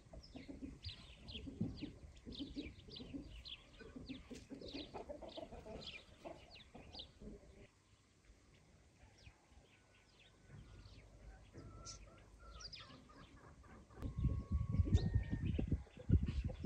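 Farmyard chickens clucking softly, with many small birds chirping in the background. In the last few seconds a louder low rustling and bumping comes in.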